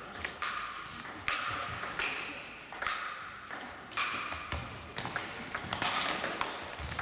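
Table tennis ball clicking against bats and the table, sharp hits every half second or so, each one echoing in a large sports hall.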